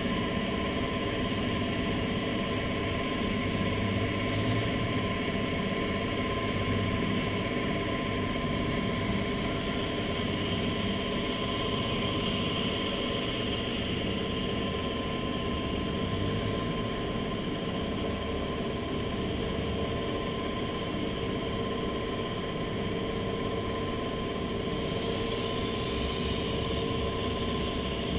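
Steady hum of heavy marine engines and shipboard machinery, with several constant tones over a low rumble. A brief faint high squeal sounds near the end.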